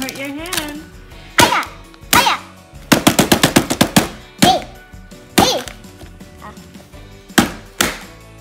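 Hands smashing through the paper-and-foil lids of a toy treasure chest's mystery compartments: sharp smacks and tearing, with a rapid flurry of about nine quick hits around three seconds in and single hits spaced out before and after.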